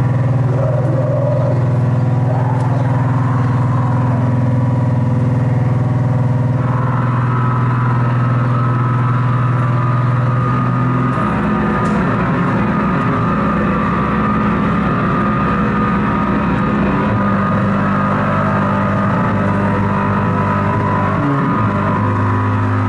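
Harsh noise electronics from a table of effects pedals, played loud through a PA: an unbroken wall of distorted drone with held low tones that shift abruptly about eleven seconds in and again near the end.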